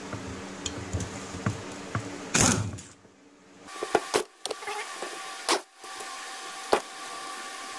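Air tool running in short bursts as it backs the screws out of a small outboard powerhead's brass plate, with sharp metal knocks about a second or so apart in the second half.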